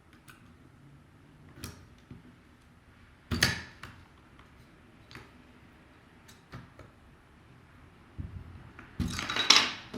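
Plastic keycaps clicking and clattering as the spacebar keycap on a mechanical keyboard is pulled off and swapped. There are a few scattered light clicks, a sharper clack about three seconds in, and a burst of rattling near the end.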